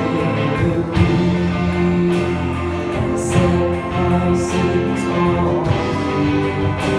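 Live gospel band playing an instrumental passage between sung verses, with sustained chords over a steady beat of about one hit a second.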